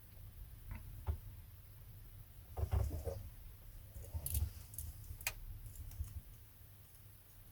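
Scattered small clicks and light rattles of tools and parts being handled while soldering header pins onto a circuit board, with a few louder clatters about three and four and a half seconds in.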